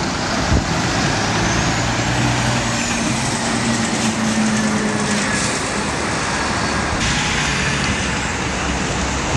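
Road traffic: a heavy truck's diesel engine hum and tyre noise as a tanker semi-trailer drives past, with other vehicles behind it. A brief knock about half a second in.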